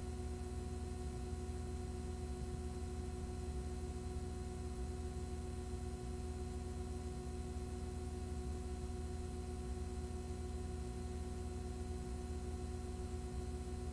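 Steady electrical hum and hiss with several fixed tones, unchanging throughout, with no other sound.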